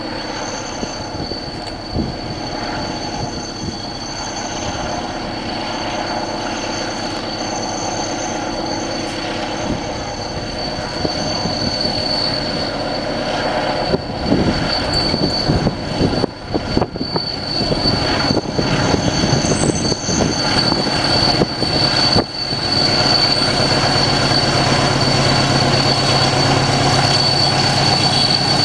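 Diesel locomotive hauling double-deck passenger coaches approaching and passing, its engine growing steadily louder and heaviest in the last few seconds. A steady high squeal from the wheels on the curve runs throughout.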